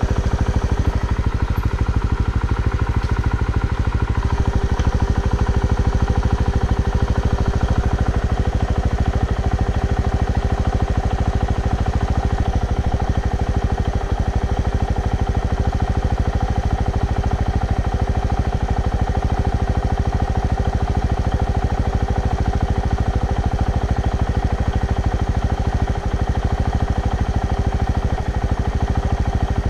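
Off-road motorcycle running steadily close to the microphone, a continuous hum holding one pitch with a fast even pulse throughout.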